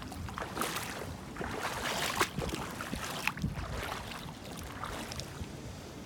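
Sea water splashing and lapping in short irregular bursts, with wind buffeting the microphone.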